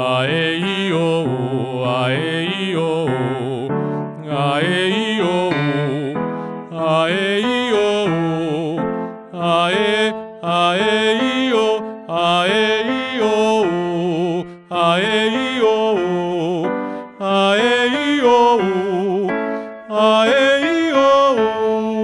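A man singing solo: a run of short vocal-exercise phrases, each two to three seconds long and stepping through several pitches, with vibrato. He is demonstrating a rounder vocal timbre.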